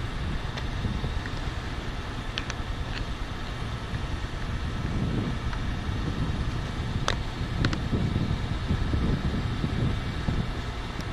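Wind buffeting the microphone in a steady, gusting rumble, with a few light clicks as a quadcopter drone is handled, about two and a half seconds in and again around seven seconds.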